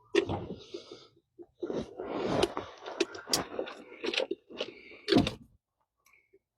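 Handling noise: a run of irregular clunks, knocks and scrapes that stops shortly before the end.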